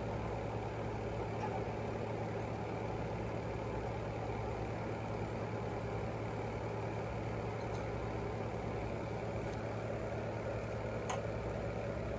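Steady low background hum with an even hiss, and a couple of faint light clicks in the second half.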